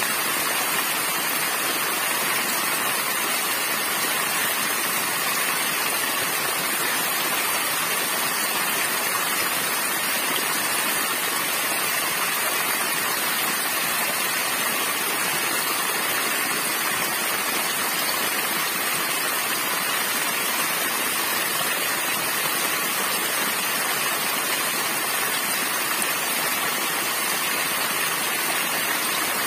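Small waterfall splashing steadily: thin streams of water falling onto rock and into a shallow pool, an even hiss and splash with little deep rumble.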